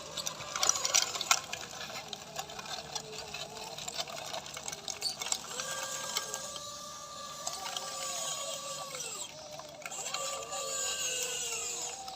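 Electric drive motors and gearboxes of a handmade 1/14-scale RC bulldozer whining, the pitch rising and falling as it drives and works. A burst of clicks and knocks comes about half a second to a second and a half in.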